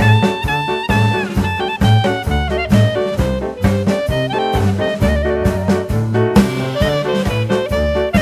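Upbeat jazz background music: a brass melody over a steady beat of bass and drums.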